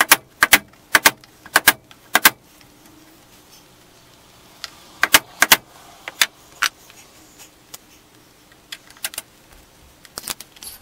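Hammer tapping at a nail in wooden window trim, working it out so the trim can be pried off. Sharp metallic taps, often doubled: a quick run in the first two seconds, four more around the middle, then lighter scattered taps near the end.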